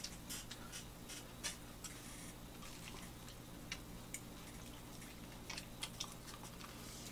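People chewing buttered-toast sandwiches with lettuce, egg and ham, heard close up: scattered soft crunches and mouth clicks over a low steady hum.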